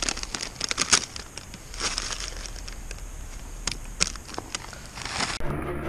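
Foil potato chip bag crinkling and crackling in irregular bursts as it is handled and shaken. Music comes in just before the end.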